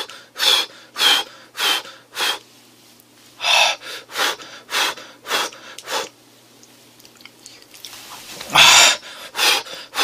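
Quick, sharp puffs of breath through an open mouth, about two a second in short runs with a pause in between and one longer, harder puff near the end: a man huffing to cool a scalding-hot steamed dumpling.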